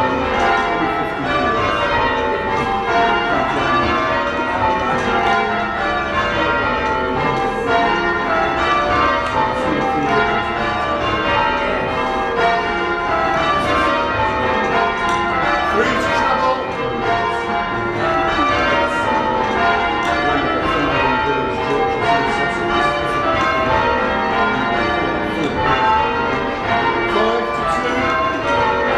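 Church tower bells in change ringing: a continuous stream of bell strikes, the bells sounding one after another in rows that each run down the scale, with no break.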